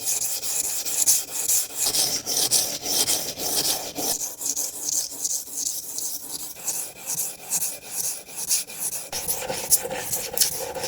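Steel carpentry scraper being sharpened: quick, repeated rubbing strokes of the metal edge against an abrasive, with no breaks.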